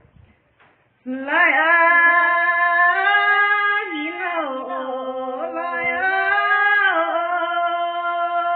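A woman's voice singing a Red Dao folk song unaccompanied, in long held notes that slide up and down in pitch, starting about a second in.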